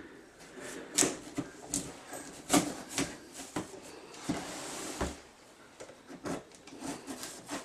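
A knife cutting and scraping at packing tape and cardboard on the top of a boxed vacuum cleaner: a series of irregular sharp clicks and scratches, with a longer rasp of slicing about four seconds in.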